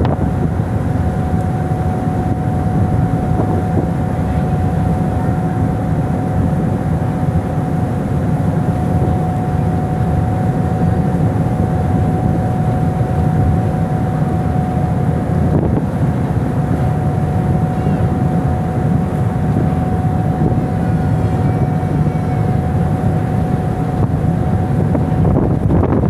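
A ship's engine drones steadily under wind buffeting the microphone, with a thin steady whine held over the rumble. Just before the end the sound changes abruptly to a hissier wind noise.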